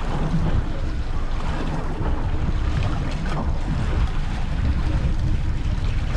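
Steady wind buffeting the microphone aboard a fishing boat at sea, with the wash of the water beneath it.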